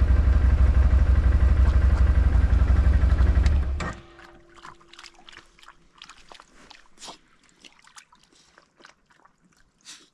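ODES 650 ATV engine idling steadily, then switched off almost four seconds in. After that come faint, scattered splashes and laps from a dog standing in a shallow puddle.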